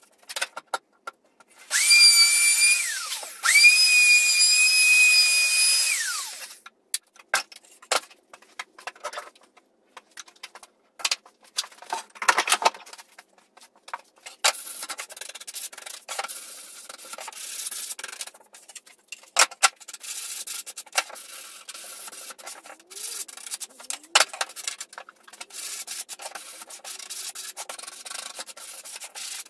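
Einhell cordless jigsaw run twice in quick succession, a high steady whine of about one and then about three seconds, each winding down in pitch as the trigger is let go. Then come scattered knocks of wood being handled and, from about halfway, steady rubbing on wood.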